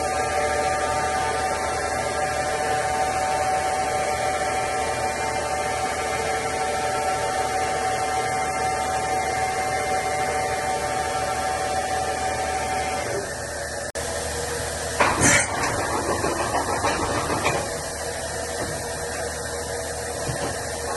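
DMV-5025 vertical machining center running with a steady hum of several held tones. Past the middle the tones stop after a brief dropout, and a short loud burst of noise comes about a second later.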